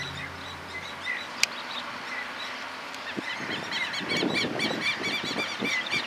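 Small birds chirping in a busy chorus of short up-and-down notes that thickens about three seconds in. A single sharp click about a second and a half in, and a low rumble building near the end.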